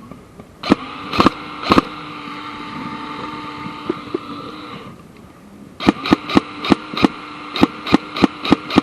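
Airsoft gun shots: three sharp cracks about half a second apart, then after a pause a fast string of about a dozen shots at roughly five a second, over a steady whine.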